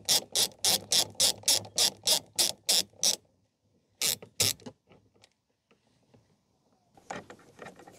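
A socket ratchet clicking as its pawl slips on each back-stroke while a 10 mm socket unscrews a door-mirror bolt, about three clicks a second. After a short pause there are two more clicks, then faint ticks.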